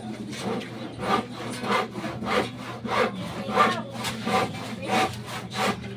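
Shovel blade scraping and chopping at dirt and gritty ground in regular strokes, about one and a half a second, starting about a second in.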